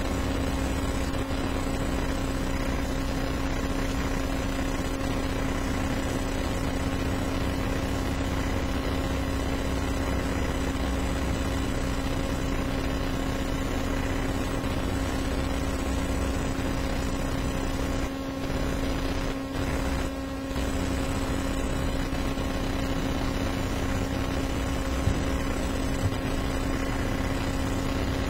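A steady hum and hiss of background noise with no speech, holding a constant pitch throughout. The level dips briefly twice in the second half, and there are two small clicks near the end.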